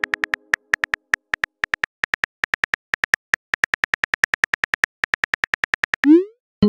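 Phone keyboard typing sound effect: rapid, even key clicks, about five a second, as a text message is typed. Near the end comes a short rising swoop as the message is sent.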